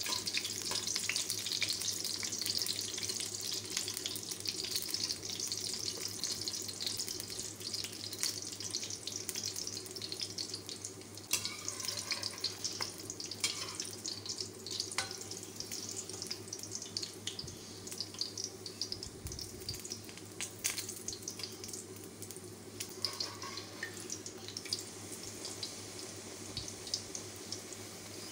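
A kachori deep-frying in hot oil in a kadai: continuous sizzling and crackling of the bubbling oil, loudest at the start and slowly easing off, with a few sharper pops along the way.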